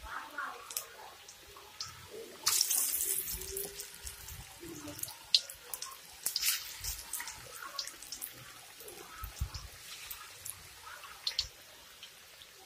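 Pakoras deep-frying in hot oil in a wok: a steady sizzle with scattered crackles and pops. The sizzle swells for about a second about two and a half seconds in.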